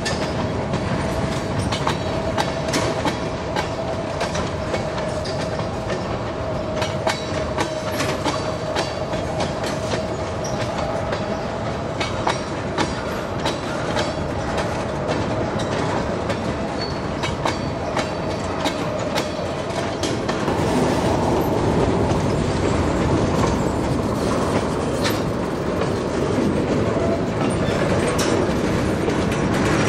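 Freight train of tank cars rolling past, wheels clicking over rail joints with a steady high-pitched ring from the wheels. About twenty seconds in, the sound turns to a louder, denser rumble.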